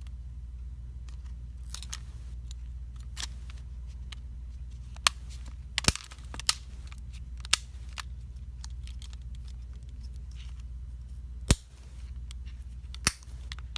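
Plastic clips of a ZTE Blade Spark Z971 phone's housing snapping into place during reassembly: about eight sharp clicks at irregular intervals, a few of them louder. Each click shows that a clip has seated fully.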